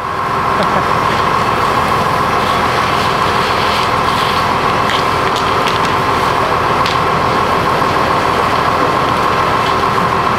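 Fire engine running steadily, with a few sharp crackles and pops from the burning mobile home.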